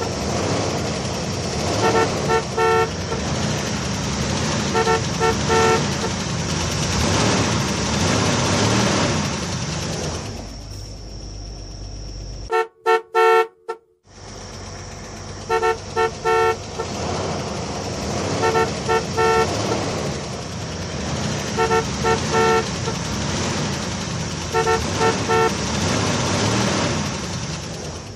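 Groups of short car-horn beeps, three or four at a time, repeating every two to three seconds over a steady engine-like rumble. The sound cuts out briefly a little before halfway, broken only by one more quick run of beeps.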